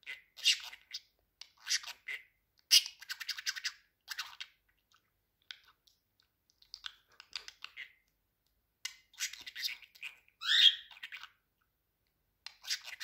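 Pet budgerigar chattering and warbling in short, scratchy high-pitched bursts, with pauses between clusters and one clear whistled glide up and down about ten and a half seconds in.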